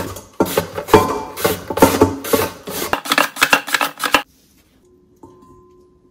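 Potato pushed back and forth over a plastic V-blade mandoline's julienne blades, a run of quick rasping cutting strokes, about two or three a second, that stops about four seconds in.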